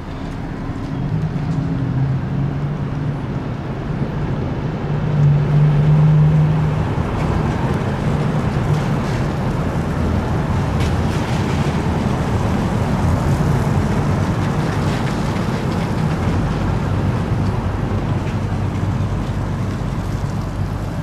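Steady low engine rumble under a wash of noise, with a low hum that swells to its loudest about five to seven seconds in.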